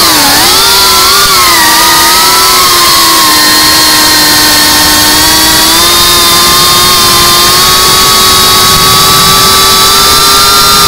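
Cinewhoop FPV drone's brushless motors and ducted propellers whining, heard close through the onboard camera's microphone. The pitch dips and swings in the first second or so as the throttle changes, then holds nearly steady and creeps slightly higher toward the end.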